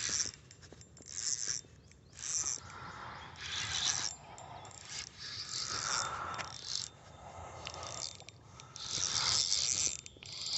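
Scraping and rustling from a spinning reel and rod being handled right against the microphone, in short irregular bursts.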